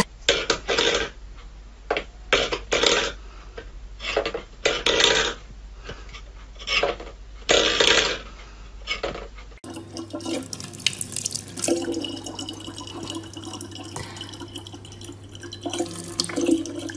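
A stainless steel bowl pawed by a cat, scraping and clattering on a wooden floor in about a dozen short, uneven bursts. Then, about ten seconds in, a thin stream of tap water runs steadily into a plastic bottle, over a low steady hum.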